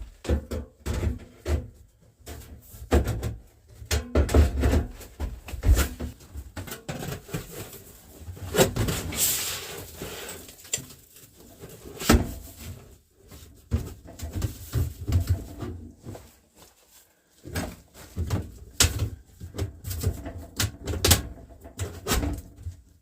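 Knocks, clanks and scraping of a sheet-metal stovepipe being worked into place on a wood stove, with many sharp knocks and dull thumps and a longer scrape about nine seconds in.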